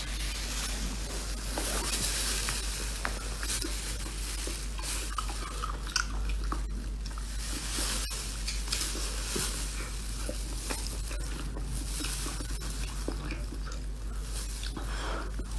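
Close-up eating sounds of a person biting and chewing a cooked whole octopus, with wet smacking and small clicks throughout, over a steady low hum.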